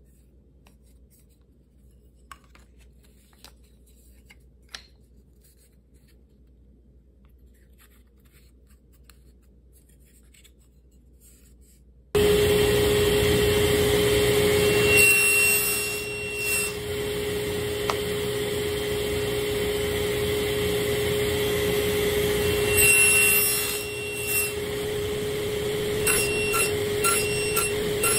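Quiet rubbing and a few light taps from wooden jig parts being handled, then, about halfway through, a table saw running loud and steady with a high whine. Its blade cuts kerfs in a small wooden part twice, and near the end it makes a quick series of short nibbling passes to clear the waste.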